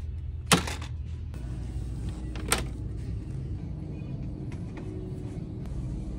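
Background music, with a sharp knock about half a second in as a plastic water bottle is dropped into a plastic shopping basket, and a second, lighter knock about two seconds later.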